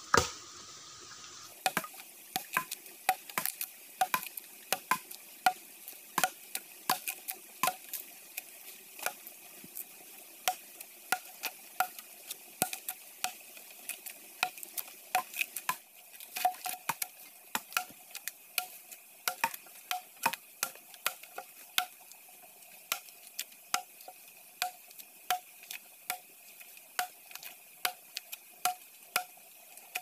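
Axe blows chopping into fresh-cut wood: a long run of sharp knocks, about two a second with short uneven pauses, over a faint steady high whine.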